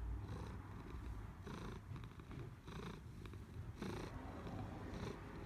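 Domestic cat purring, the steady rumble swelling and easing with each breath about once a second.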